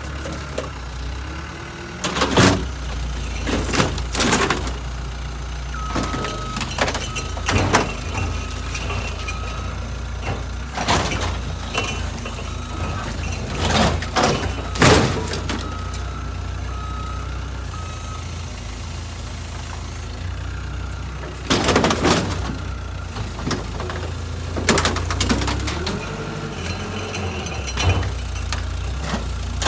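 Skid steer engine running while it smashes into a car body, with repeated loud crashing and crunching impacts. Through the middle stretch a back-up alarm beeps steadily.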